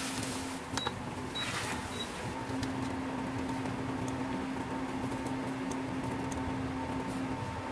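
Beaten egg cooking in a hot nonstick frying pan: soft sizzling with a brief hiss about a second and a half in and scattered faint crackles, over a steady electric hum.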